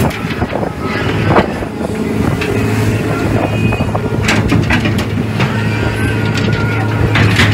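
Fishing boat's engine and deck machinery running with a steady low hum under wind, with scattered sharp metal knocks and clanks as a steel crab pot is handled on the deck.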